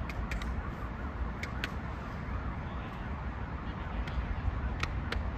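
Steady low outdoor rumble, like wind or distant traffic on a phone microphone, with a few sharp clicks scattered through it.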